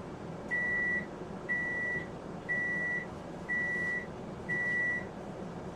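Microwave oven beeping five times, one steady high beep about every second, signalling that its defrost cycle has finished.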